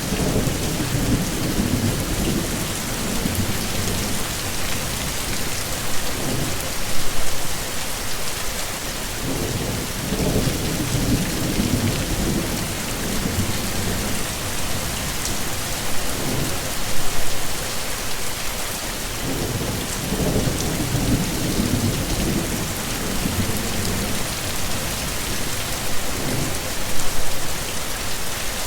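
Heavy rain falling steadily in a thunderstorm, with low rumbles of thunder rolling in and fading out several times.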